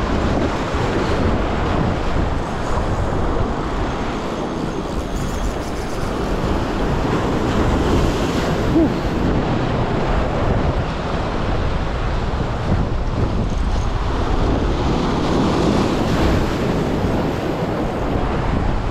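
Sea surf washing and breaking, with wind buffeting the microphone; steady, rising and falling in slow swells.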